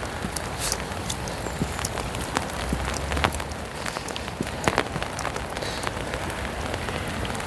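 Steady rain falling as an even hiss, with many sharp, irregular ticks of drops striking close to the microphone.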